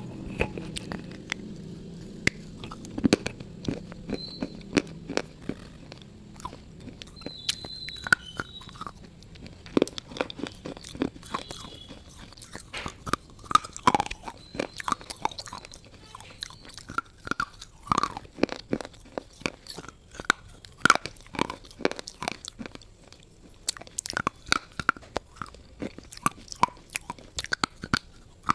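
A person biting and chewing something hard and brittle close to the microphone: a long run of sharp, irregular crunches, coming thicker from about ten seconds in.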